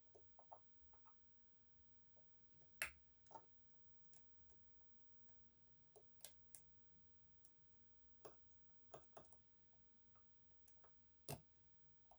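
Lock-picking on an EVVA 3KS high-security slider lock: scattered, irregular small clicks and taps of the metal hook and tensioner working in the keyway. Two sharper clicks stand out, about three seconds in and near the end.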